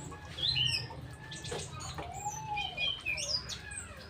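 Songbirds chirping and calling, with many short overlapping chirps and whistled notes over a steady low hum.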